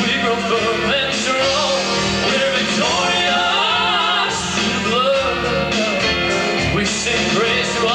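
A song with a sung vocal melody over a full instrumental backing and a steady beat.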